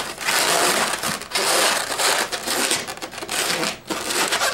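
Inflated latex 260 modelling balloons rubbing against each other and against the hands as a bubble is twisted and locked into a fold twist. The rubbing comes and goes in uneven stretches with short pauses.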